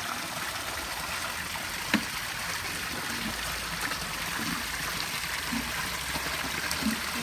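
Backyard rock-garden waterfall and stream, water running and splashing steadily. A single sharp knock about two seconds in.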